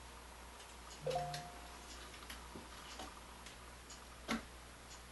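Light clicks and taps from a circuit board and its plastic housing being handled on a workbench, with a louder knock about a second in and a sharp click near the end, over a faint steady hum.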